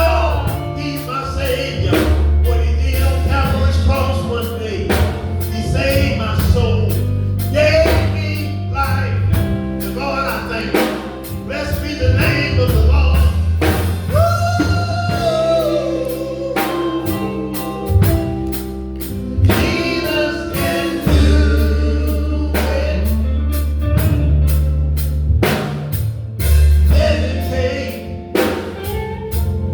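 Gospel group singing with a live band: drum kit keeping a steady beat, heavy bass, keyboard and guitar.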